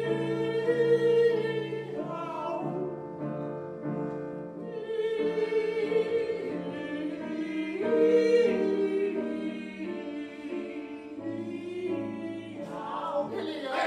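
Women's ensemble singing in operatic style with vibrato, holding long notes, accompanied by a grand piano.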